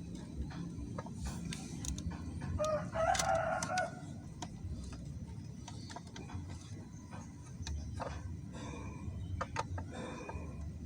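A rooster crows once, about three seconds in, over scattered light clicks and taps and a steady low rumble.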